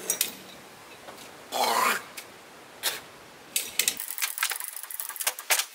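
A 2-ton come-along ratchet hoist being worked by hand, its pawl clicking in irregular runs as it winches a pickup bed up on ropes, with one louder half-second creak about a second and a half in.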